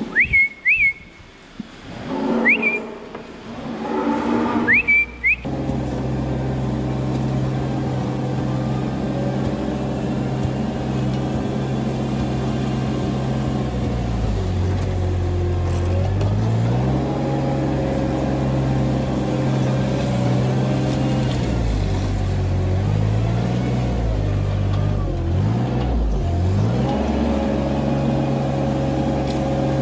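A few short high chirps, then the engine of a small ride-on scraper machine running steadily as it pushes slurry along a concrete alley. The engine note dips and picks up again twice as the load changes.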